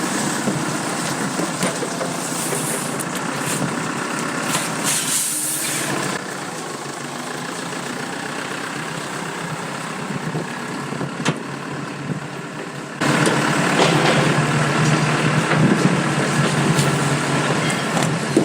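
A motor vehicle engine running steadily, with a short hiss about five seconds in. Partway through, the sound gets louder all at once.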